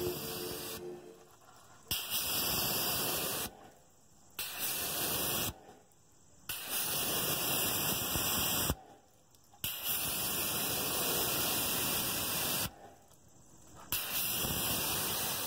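Water spraying onto a car door panel in about five separate bursts, each a steady hiss of one to three seconds that starts sharply, with short silences between.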